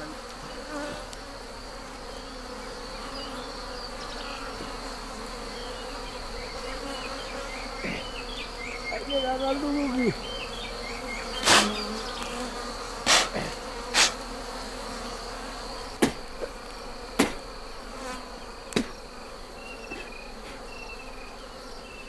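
A colony of wild honeybees buzzing steadily around their nest, agitated and defending it as it is being harvested, with single bees droning past close by. About halfway through come a series of sharp knocks, roughly eight over several seconds.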